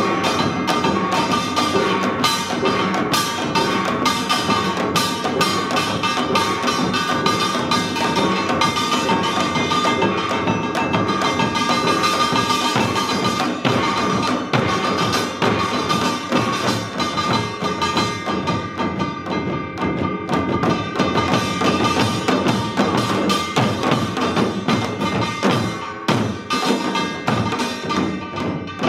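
Korean samul nori percussion ensemble playing seated: a dense, fast rhythm of janggu hourglass drums and buk barrel drums, with a metal gong ringing over it.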